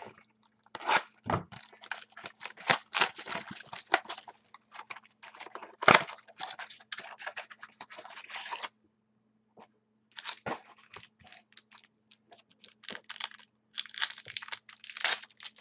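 Foil wrappers of football trading-card packs being torn open and crinkled, with the cards handled, in dense runs of crackling that stop for a second or so past the middle. A faint steady low hum sits underneath.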